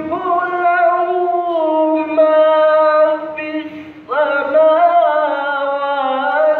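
A schoolboy's voice reciting the Quran in a melodic, drawn-out chant, amplified through a microphone. There are two long ornamented phrases, with a short breath between them about four seconds in.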